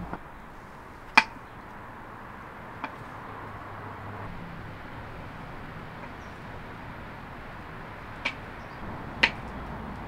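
Kitchen knife slicing through a sausage and knocking on a wooden cutting board: a few sharp, separate knocks at irregular intervals, the loudest about a second in and another near the end, over a low steady background hiss.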